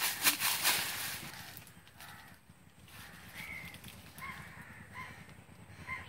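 Dry leaves and branches rustling and crackling loudly for about the first second, then a bird giving short calls about once every three-quarters of a second through the second half.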